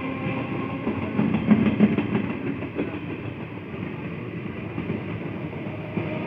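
Electric multiple-unit local train passing close by, its wheels clicking over rail joints, loudest about one and a half seconds in, then a steadier rumble as the coaches roll past.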